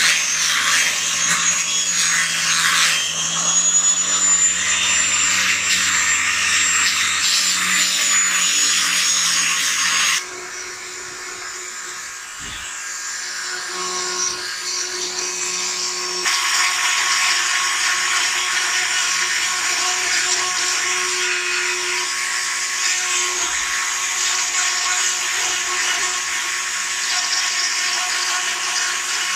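Electric disc sander running steadily against the wooden rifle stock, with a high whine, stopping abruptly about ten seconds in. Then a hand-held rotary tool grinding the wood of the stock with a small bit, quiet at first and louder and steady from about sixteen seconds.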